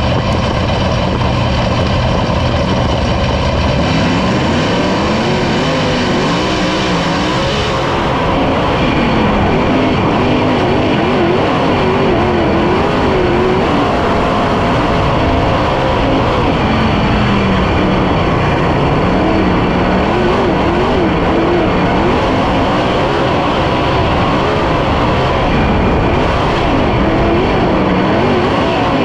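410 sprint car's methanol V8, heard from the cockpit at racing speed. The engine note climbs and gets a little louder about eight seconds in, then keeps rising and falling in pitch every few seconds as the throttle is worked through the turns.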